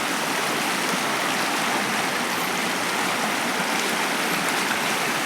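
Steady, unbroken rush of flowing river water.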